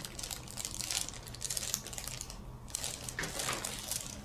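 Rustling and crinkling in several bursts of fine crackle as a chiropractor's hands shift and position a patient's head and neck for a neck adjustment.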